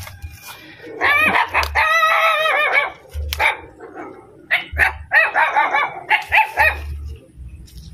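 A dog giving two runs of high, wavering yelps, each about two seconds long, starting about a second in and again near five seconds, with a few short clicks and rustles between them.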